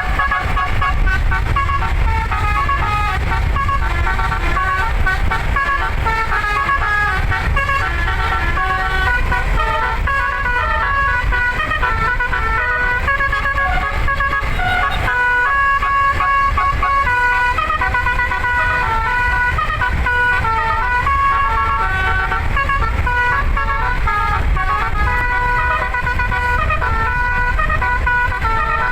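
Telolet basuri, an 11-note musical air horn for a bus, playing a melody of held notes that change every fraction of a second, over a steady low rumble.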